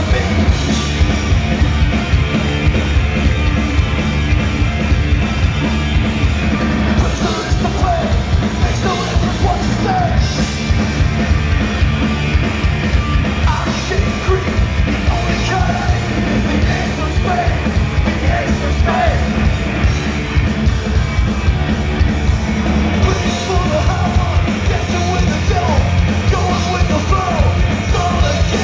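A hard rock band playing live and loud through a PA, with electric guitar, bass and drums under a singer belting into the microphone, heard from within the audience.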